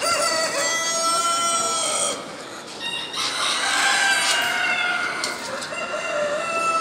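Brahma roosters crowing: three long, drawn-out crows one after another, each about two seconds, with short gaps between them.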